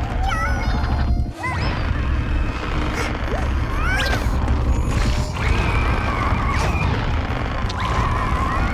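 Cartoon soundtrack: music and crash-like sound effects over a steady low rumble, with short squeaky gliding chatter from the cartoon ants.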